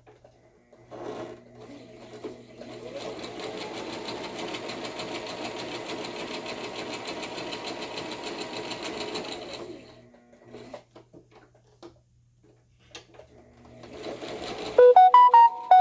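Electric sewing machine stitching steadily for about nine seconds, then stopping. Near the end, a phone rings loudly with a melodic ringtone of stepping notes.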